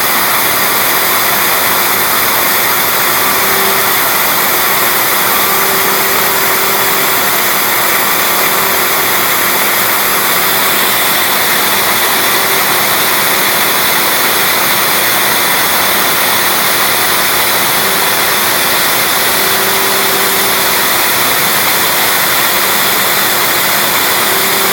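MPCNC router spindle running at speed with a small bit milling into MDF: a steady high whine and hiss. A lower tone comes and goes every few seconds as the machine moves.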